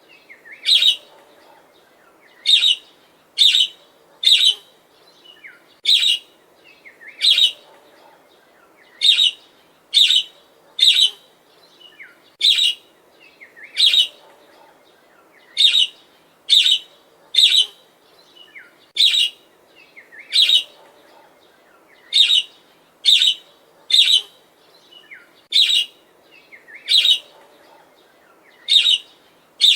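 Budgerigar (budgie parakeet) giving short, loud chirps over and over, about one a second and sometimes two in quick succession.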